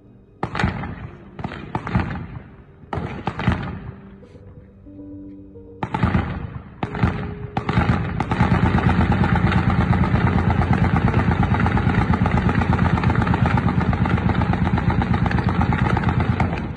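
Gunfire: several single shots in the first few seconds, then from about halfway through a long, rapid, continuous stream of shots like automatic fire that stops just at the end.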